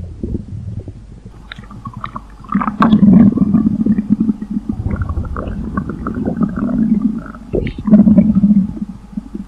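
Stomach rumbling and gurgling: a low, fluttering rumble, quieter for about the first two seconds, then louder from about two and a half seconds in, with squeaky higher-pitched gurgles over it.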